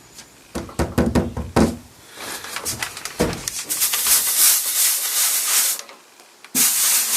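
A few knocks and clicks, then a loud high hiss of steam as a hot iron is pressed onto a damp cloth laid over wood veneer, steaming a scratch to raise the grain. The hiss stops about six seconds in and briefly returns near the end.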